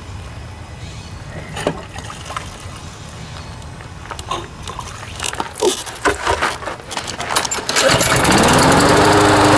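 Clicks and knocks of handling, then about 8 s in the Briggs & Stratton Quantum single-cylinder mower engine comes on loud, rising in pitch over about a second before holding a steady fast run: the test run of its freshly rebuilt automatic-choke carburetor.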